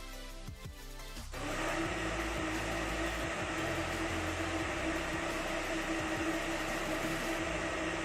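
Electric kitchen blender running steadily while it blends a thick banana-and-egg hair conditioner mixture. The motor drops off briefly at the start and is switched back up about a second and a half in.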